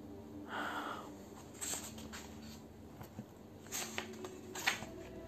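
A sheet of paper being handled and turned close to a phone microphone, giving a few short rustling crackles, the sharpest near the end, over a faint steady hum.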